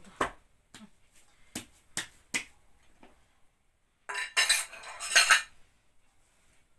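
A few sharp knocks as a ball of dough is handled over a stainless steel bowl, then about four seconds in a busy clatter of crockery and a spoon clinking as a mug and a small bowl are stacked into a glass bowl.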